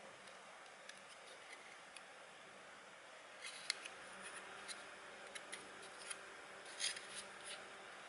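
Faint light clicks and rubbing from fingers handling the plastic goggle housing and the ribbon-cable circuit board, starting about three and a half seconds in, over a low hiss.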